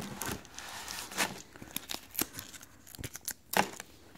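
Light, irregular rustling and scratching as the black insole is worked out of an Adidas Ultraboost 3.0 knit sneaker, with the shoe and tissue paper in its box crinkling under the hands.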